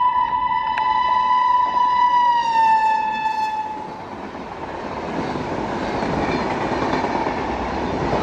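Electric locomotive sounding one long horn blast that drops in pitch as it passes, followed by the steady rushing rumble of its passenger coaches rolling by. The sound cuts off abruptly at the end.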